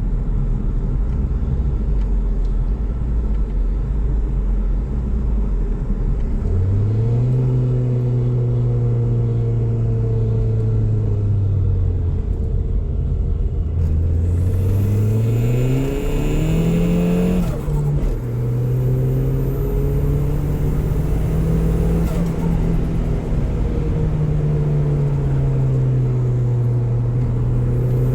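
Saab 9000 2.3's turbocharged four-cylinder engine (TD04 turbo) driving under load, its revs rising and falling. About halfway through the revs climb steeply while a high turbo whistle rises with them, then the revs drop suddenly.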